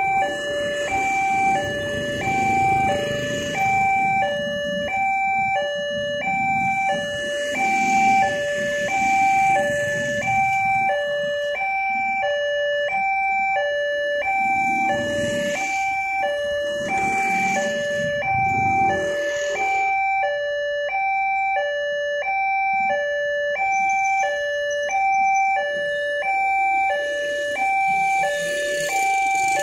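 Railway level-crossing warning alarm sounding a steady two-tone high-low beep, about one cycle a second, to signal an approaching train. Motorcycle engines pass underneath it.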